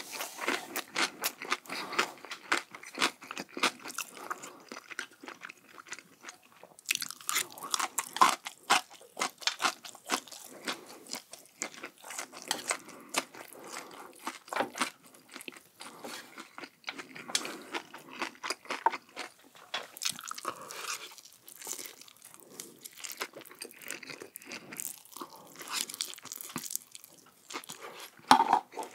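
Close-miked biting and chewing of crunchy food: a steady run of crisp crunches, with a brief lull about six seconds in.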